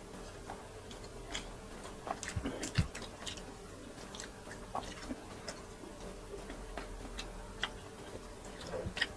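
Mouth and hand sounds of two people eating grilled chicken and rice with their fingers: scattered soft clicks and smacks of chewing, irregular and busiest about two to three seconds in.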